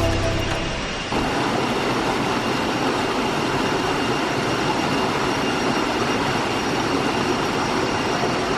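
Waterfall: a steady rush of falling water that starts abruptly about a second in and holds evenly.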